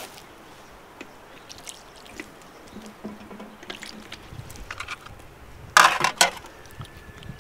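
Water splashing onto hands from a hanging metal hand washer as its valve rod is pushed up, in a short loud burst about six seconds in, after a few light knocks and clicks.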